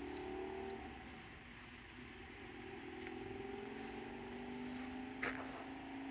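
An insect chirping steadily outdoors, about three chirps a second, over a faint low drone. A single sharp click about five seconds in.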